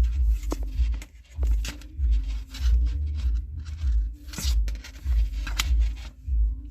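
Nylon paracord being pulled and wrapped around the fingers, rustling and scraping in short strokes, over a low repeated thudding.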